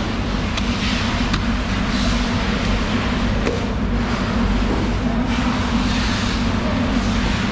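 Steady low machine hum, like a running engine, with a few faint sharp clicks over it.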